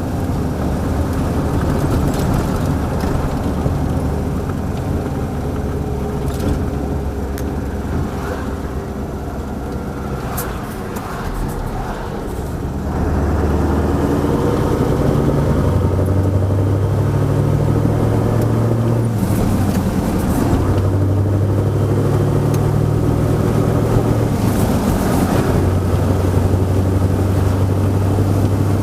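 1989 Mercedes-Benz SK 1748's V8 turbodiesel engine running on the move. It is fairly quiet for the first part, then grows markedly louder under load about halfway through, with brief breaks and pitch steps twice in the second half.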